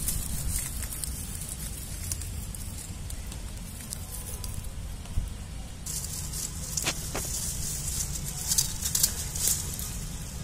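Dry, withered vine stems and dead leaves rustling and crackling as hands part and sort through them, the crackle thickening about halfway through, with a couple of sharp snaps a little later. A steady low rumble runs underneath.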